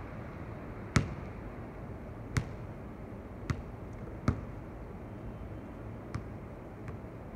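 Basketball hitting an outdoor hard court: about six separate knocks, the loudest about a second in, then fainter ones, over steady background noise.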